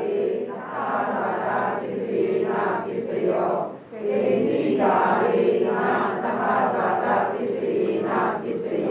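A group of voices chanting Pali text together in unison, Buddhist recitation style, with a brief pause about four seconds in.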